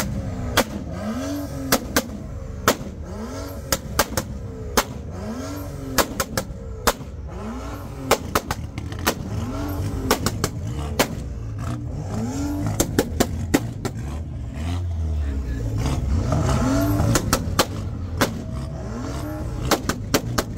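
BMW engine revved over and over, its pitch rising and falling about once a second, with many sharp exhaust pops and crackles throughout.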